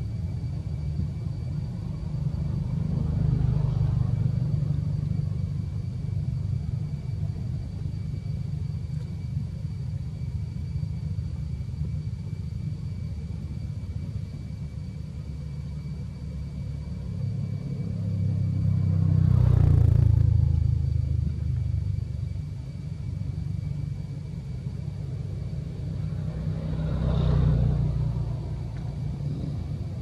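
Steady low traffic rumble, with vehicles passing three times, each one swelling up and fading away over a couple of seconds.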